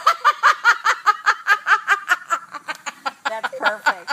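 A woman laughing hard: a long, unbroken run of quick, high-pitched 'ha' pulses, about six a second, weakening slightly near the end.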